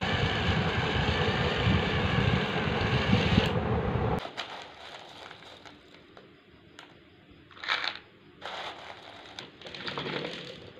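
A small electric motor runs with a fast rattle for about four seconds, then stops abruptly. A few short, soft clatters follow, which fit matchsticks spilling from a tipping toy trolley.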